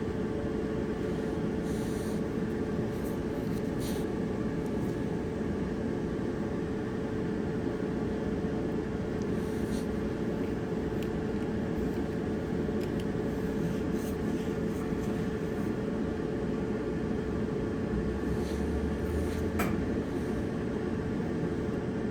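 Whirlpool gas dryer running with its drum turning on a newly replaced drum roller: a steady hum and rumble with a few faint ticks.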